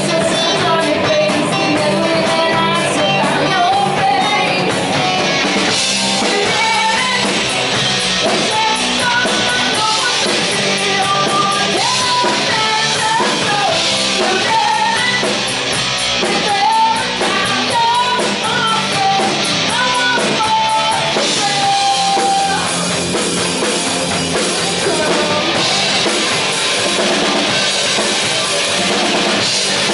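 Live rock band playing: electric guitars and drum kit with a singer's voice carrying the melody, heard loud and close through a phone's microphone.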